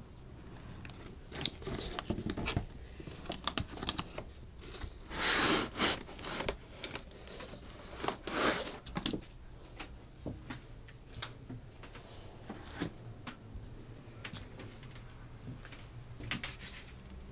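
Unpacking noise: cardboard box flaps and foam packing blocks being handled, rubbing, scraping and knocking with irregular clicks. The loudest scrapes come about five and eight seconds in.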